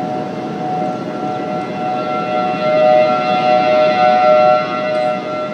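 Federal Signal Thunderbolt outdoor warning siren sounding a steady two-note tone. It swells louder from about halfway through and eases off near the end as the rotating horn sweeps past, with wind noise underneath.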